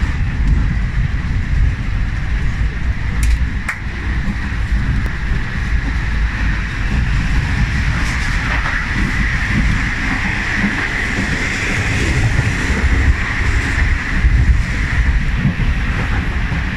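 Passenger train running at speed, heard from inside the carriage corridor: a steady low rumble of the wheels on the track with a constant hiss over it, and a couple of sharp clicks a few seconds in.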